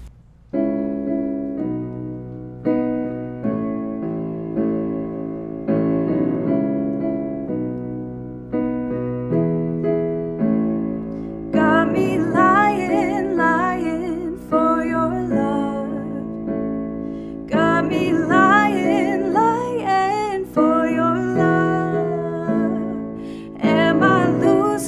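A solo piano plays slow, sustained chords struck about once a second. A woman's singing voice comes in over it about eleven seconds in, in phrases of a few seconds with short breaks between.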